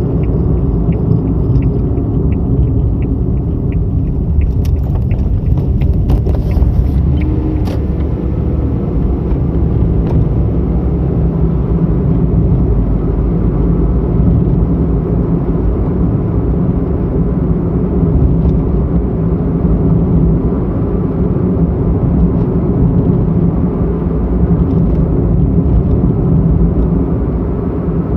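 Car driving along a road, heard from inside the cabin: a steady low rumble of engine and tyres. A light, regular ticking, about two ticks a second, runs through the first few seconds.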